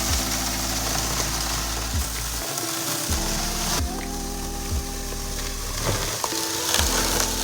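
Background music with sustained notes and a recurring low bass beat.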